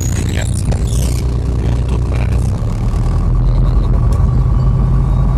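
City bus engine running close by, a steady low rumble, with a thin steady whine coming in about three seconds in. Camera handling rustles and knocks in the first second.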